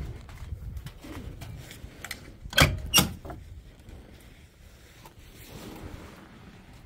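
Two sharp clacks on a Caterpillar 777D haul truck's cab area, about half a second apart, with fainter creaks and handling noise over a low rumble.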